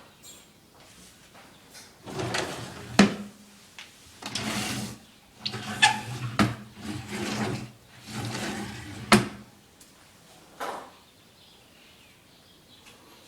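Fitted kitchen drawers sliding open and shut several times. Each slide ends in a sharp knock as the drawer closes, three loud ones in the first nine seconds and a softer one about ten seconds in.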